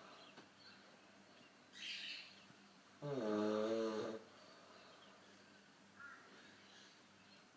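A man snoring in his sleep: a short hissing breath about two seconds in, then one loud, pitched snore lasting about a second, with faint breathing between.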